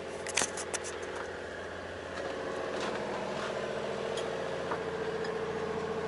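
A sailing yacht's inboard engine running steadily under motor, with a few sharp clicks in the first second. About two seconds in, the engine drone grows louder and steadier, as heard from below deck in the cabin.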